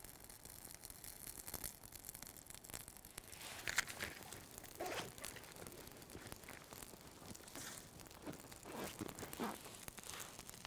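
Faint crackling and rustling of a small kindling fire of birch bark and small spruce twigs catching, with irregular short crackles.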